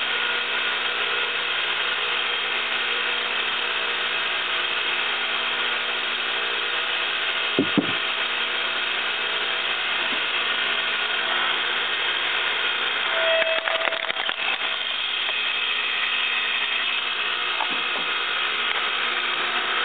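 Small electric log splitter's motor and hydraulic pump running with a steady hum. A couple of knocks come about eight seconds in as a log is set on the bed, and a short tone and crackling come about thirteen to fourteen seconds in as the ram splits the wood.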